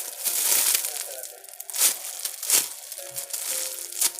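Plastic squishy packaging crinkling as it is handled, with a few sharp crackles.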